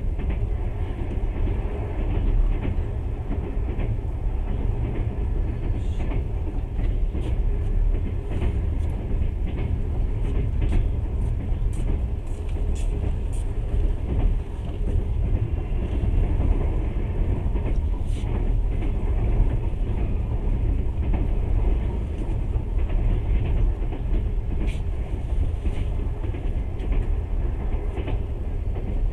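Passenger train running along the line, heard from inside the carriage: a steady low rumble of wheels on rails, with scattered faint clicks.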